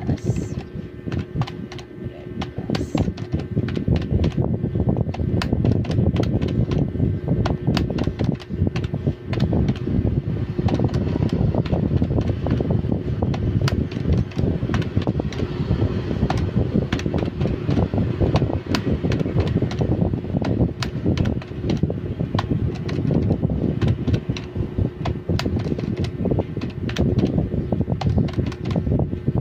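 Calculator keys clicking under one finger, several presses a second in irregular runs, over a steady, loud rushing hum like a running fan.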